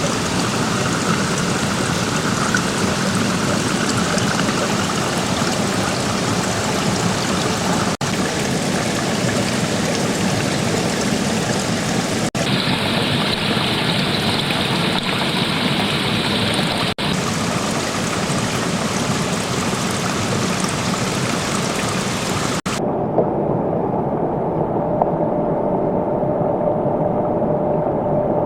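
Rushing stream water, a steady loud hiss, heard across several clips joined by sudden cuts. After the last cut, near the end, the sound is duller and the high hiss is gone.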